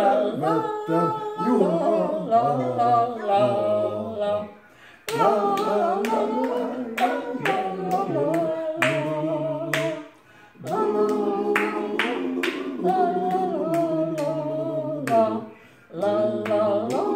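An elderly man and woman singing together in phrases with short breaks between them, joined by hand-clapping about twice a second from about a third of the way in.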